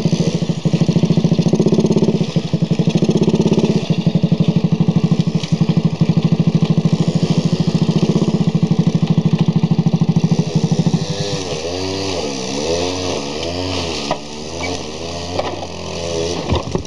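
An Alpha-type moped's single-cylinder four-stroke engine running close by with a rapid, even beat. About two-thirds of the way through it grows quieter and its pitch rises and falls again and again as the throttle is worked.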